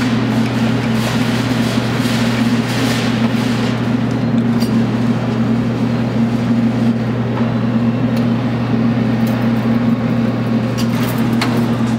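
Claw machine running with a steady electrical hum: a low drone with a second, higher steady tone over it, and a few faint clicks.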